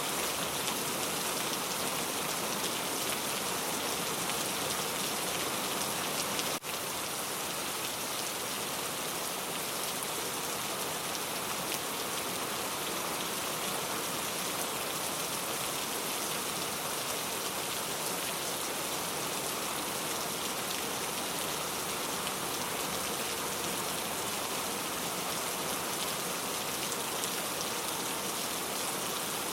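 Steady rain falling on a surface, an even hiss of many drops, with a brief dip in level about six and a half seconds in.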